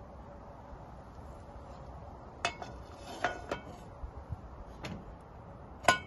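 Metal pans and a cooking utensil knocking and clinking on a cast-iron wood stove top: several sharp, ringing knocks, the loudest near the end.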